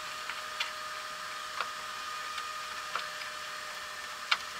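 Hands working on car wiring: scattered small sharp clicks and ticks, about five in all with the loudest near the end, over a faint steady hum.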